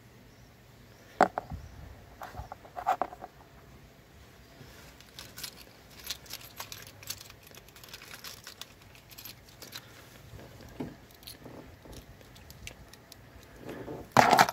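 Scattered handling clicks and small rattles, then a short, loud jingle of car keys being set down on the plastic engine cover near the end.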